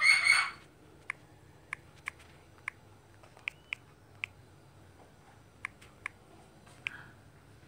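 Clicks from typing on a smartphone's on-screen keyboard: about ten short, sharp taps at an uneven pace as a search is typed letter by letter, after a brief voice at the very start.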